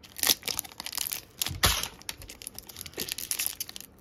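Foil hockey trading-card pack being torn open by hand, the wrapper ripping and crinkling in short irregular bursts, with two louder rips near the start and about a second and a half in.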